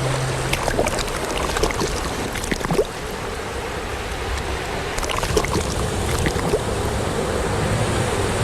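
Sea water sloshing and lapping around a small boat, with scattered small clicks and creaks.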